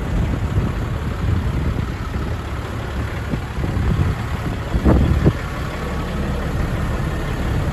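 Diesel engine of a Peterbilt 385 semi tractor idling steadily, with wind buffeting the microphone.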